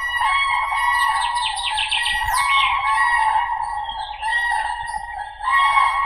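Common cranes (Grus grus) trumpeting: several birds' calls overlap without a break. A quick run of higher chirps comes about a second in.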